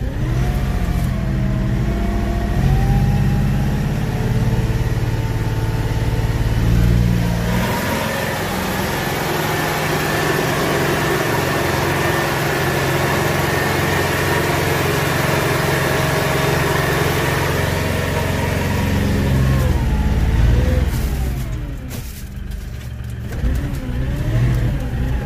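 LS XU6150 tractor's diesel engine running while the tractor is driven and manoeuvred, engine speed rising and falling. It drops lower about twenty seconds in, then revs up and down again near the end.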